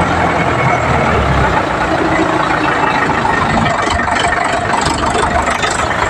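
Indo Farm tractor's diesel engine running with a front loader/dozer fitted; its steady low note changes about a second and a half in.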